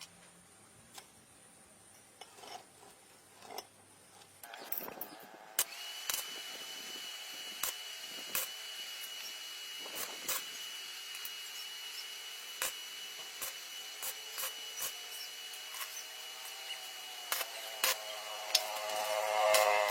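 A small electric motor or power tool starts running about five seconds in with a steady high whine, over scattered clicks and knocks, and grows louder near the end.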